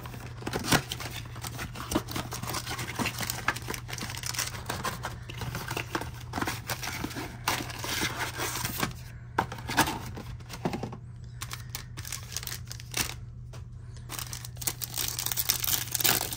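Trading-card packs and their cardboard blaster box being handled: irregular crinkling, rustling and small clicks of foil wrappers and cardboard, with a foil pack torn open near the end.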